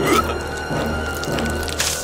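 Background music with a steady low drone and held high tones, over wet squelching sound effects of intestines being chewed.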